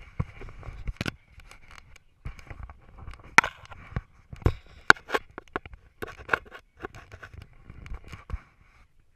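Handling noise from a GoPro camera on a dog's back harness: fingers scraping and rubbing on the camera housing and harness, with many sharp clicks and knocks.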